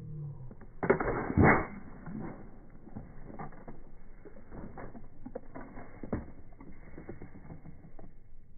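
Water bottle rocket launching from its pump launcher: a sudden loud burst of escaping pressurised air and water about a second in, lasting under a second, followed by scattered crackles and clicks.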